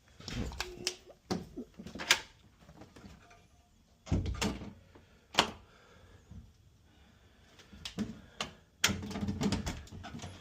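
A door being closed and pushed against its frame, with clicks and knocks from the latch and deadbolt. Sharp clicks are scattered through, with a heavier thump about four seconds in and a cluster of thumps and clicks near the end.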